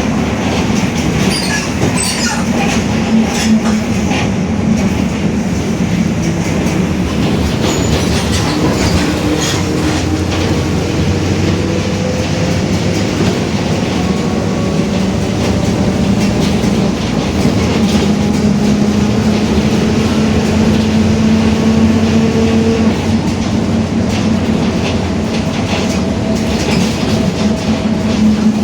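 Ride inside a Mercedes-Benz OF-1721 BlueTec 5 diesel city bus: a steady engine and driveline drone with fainter tones slowly rising in pitch as it gathers speed, and light rattling throughout. The growl is one the recordist puts down to the differential.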